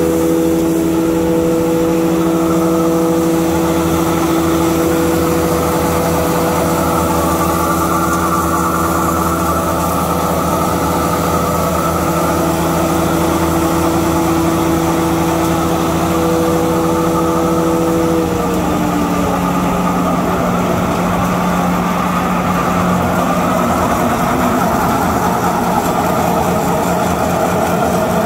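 Three-phase electric hammer mill with cyclone and 260C pellet mill running together, grinding alfalfa and pressing it into pellets: a loud, steady machine drone with a low hum and whining tones. About two-thirds of the way through, the whining tones slide down in pitch and fade out.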